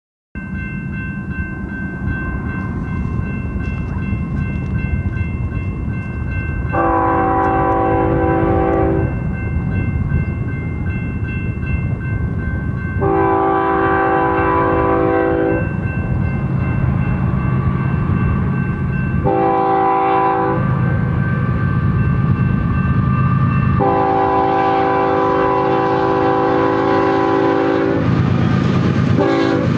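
BNSF freight locomotive horn blowing the grade-crossing signal as the train approaches: long, long, short, long, with the last blast held longest. Underneath are the diesel locomotives' low rumble, growing as they draw close near the end, and steady high ringing from the level-crossing bell.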